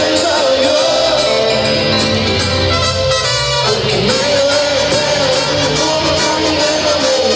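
Live mariachi band music with violins and drums, with a male singer holding long notes into a microphone.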